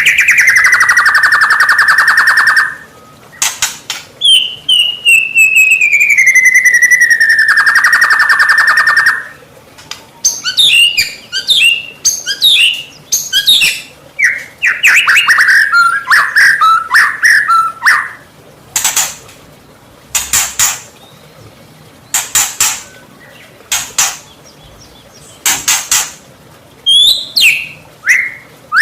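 White-rumped shama (murai batu) singing: two long buzzing trills, the second sliding down in pitch, then a run of quick varied whistled phrases, then a string of harsh rasping notes every second or two, and more whistles near the end.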